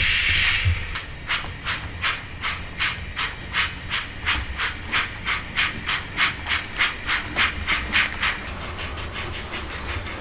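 Sound-fitted model steam locomotive's speaker playing a steam hiss that stops about a second in, then regular exhaust chuffs of a steam engine pulling away. The chuffs speed up from about two to about four a second and soften near the end.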